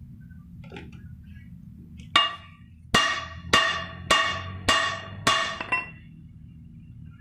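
About seven ringing hammer blows on the steel yoke of a truck propeller shaft, roughly one every half second, starting about two seconds in, driving a new cross joint (universal joint) into place.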